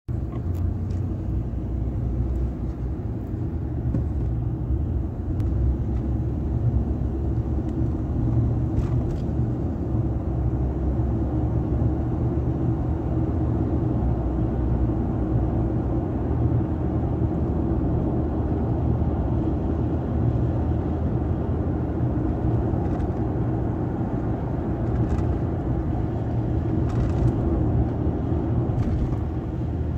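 Steady low rumble of engine and tyre noise heard inside the cabin of a moving vehicle, with a few faint clicks.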